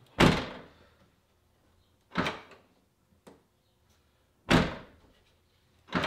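Chevy Cruze trunk lid being shut, its latch clunking: three loud thumps about two seconds apart, and another starting right at the end.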